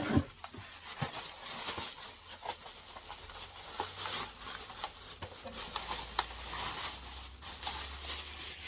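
Packaging rustling and crinkling, with scattered light clicks and knocks, as desk-fan parts are unwrapped and lifted out of their box.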